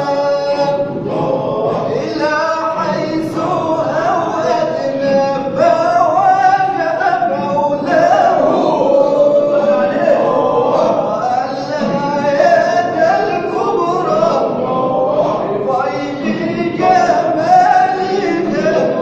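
Sufi devotional chanting (inshad) sung by men's voices, a melodic line carried continuously by a lead voice with a group.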